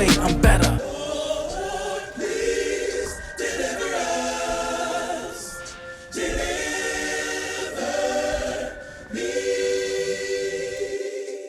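Background music: after a second of a heavy hip-hop beat, sustained choir-like sung chords in several long phrases with short breaks, fading out near the end.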